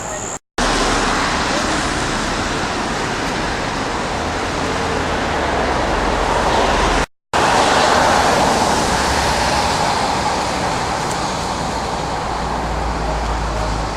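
Loud, steady outdoor rushing noise with a low rumble underneath, the mix of fast-running floodwater and traffic. It drops out to dead silence twice, briefly, about half a second in and about seven seconds in, where the footage is cut.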